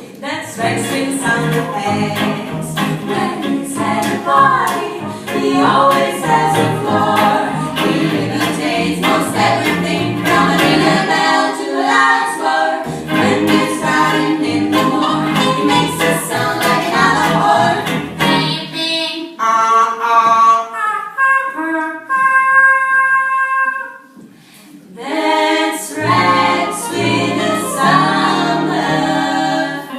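Female vocal group singing a close-harmony novelty song with musical accompaniment. About twenty seconds in, the sound thins to a few long held tones, then the full singing returns near the end.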